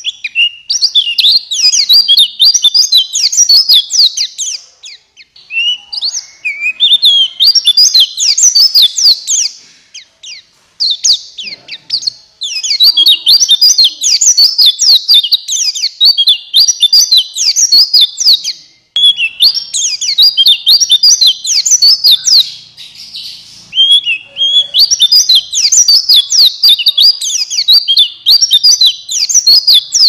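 Male white-eye (pleci buxtoni) singing a loud, rapid, high twittering song. It comes in bouts of a few seconds with short pauses between them. This is the full, vigorous ('gacor') song used as a lure to set other white-eyes singing.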